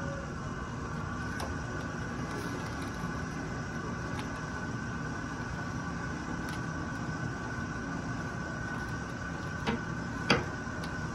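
Steady background hum of the room with faint high tones. Near the end come two sharp knocks about half a second apart, the second louder, as the man shifts his weight out of his wheelchair in a transfer.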